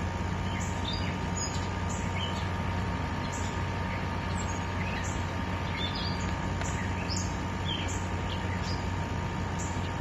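Steady rush of a forest creek with a low, even hum underneath, and small birds chirping in short high calls throughout.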